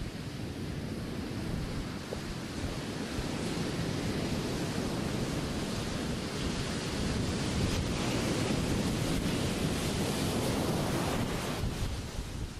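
Ocean surf breaking, a steady rushing that swells louder through the middle and eases near the end, with wind on the microphone.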